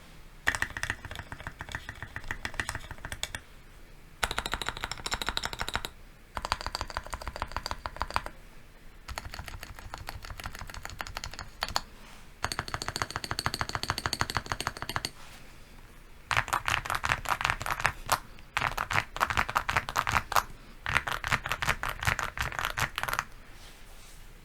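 Meletrix Zoom TKL mechanical keyboard being typed on in rapid runs of keystrokes, about eight bursts of a few seconds each with short pauses between. The last three bursts are the loudest.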